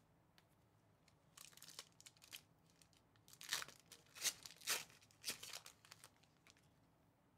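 Foil wrapper of a Spectra basketball card pack being torn open and crinkled by hand: a run of crackly tears starting about a second in, loudest in the middle, then a few softer crinkles.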